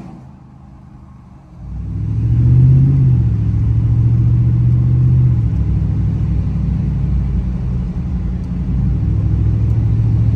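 Supercharged 6.2-litre V8 of a first-generation Ford Roush Raptor running at cruise, heard as a deep, steady drone inside the cab. It comes in sharply after a quiet first second and a half and swells briefly about a second later.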